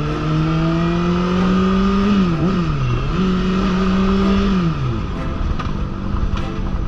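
Motorcycle engine under throttle, its note climbing steadily. The note dips sharply twice around the middle, then falls away about two-thirds through to a lower, steadier running sound.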